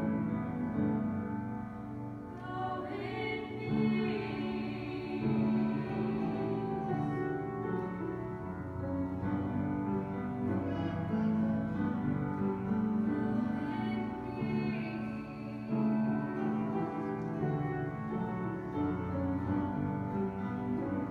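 Three women's voices singing a hymn in harmony, with upright piano accompaniment.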